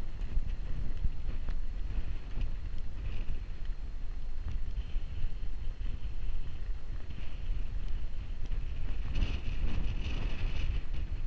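Wind buffeting an action camera's microphone: a gusting low rumble that rises and falls without letting up.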